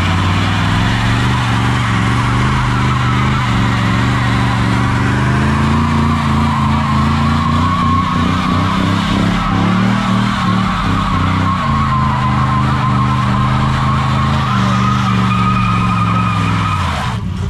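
A vehicle spinning its tires in a long burnout: the engine is held at steady high revs while the tires squeal and screech against the pavement. Both cut off near the end.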